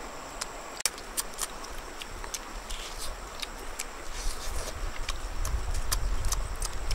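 Wood cooking fire crackling, with sharp irregular pops several times a second. A low rumble builds from about halfway in.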